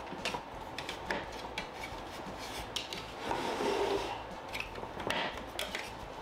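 Plastic parts of a Hot Wheels Super Ultimate Garage playset being handled and fitted together: gray plastic platforms rubbing and scraping against the blue plastic tower supports, with scattered clicks and knocks.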